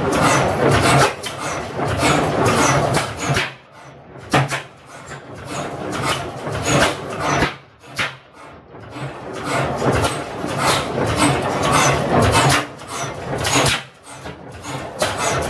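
Twin-cylinder slide-valve gas engine with flame ignition running loud, firing in runs of sharp exhaust beats broken by three short lulls, the way a hit-and-miss engine skips charges and coasts.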